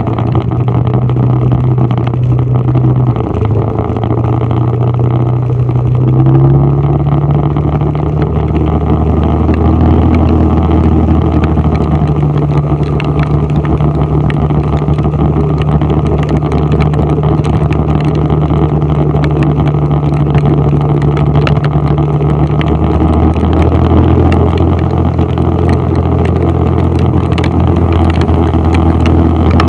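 A vehicle's engine running while driving, heard from inside the cabin, with steady road and tyre noise on a wet road. The engine pitch steps up about six seconds in and shifts again a little past twenty seconds, as the speed changes.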